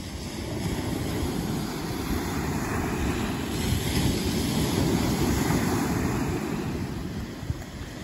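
Small ocean waves breaking on a sandy shore and washing up the beach. The surf swells to its loudest in the middle and eases off near the end, over a low rumble of wind on the microphone.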